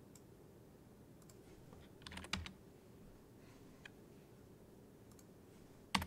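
Computer keyboard keystrokes: a quick cluster of key presses about two seconds in, a few scattered light taps, and one sharper key press near the end.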